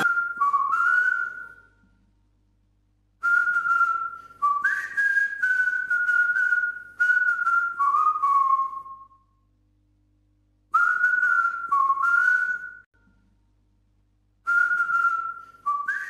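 A whistled tune: phrases of held and sliding notes, broken by pauses of a second or two.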